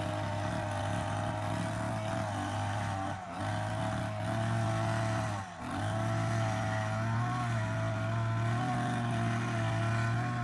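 Hedge trimmer motor running steadily, with its pitch wavering slightly under load. It dips briefly twice, about three and five and a half seconds in.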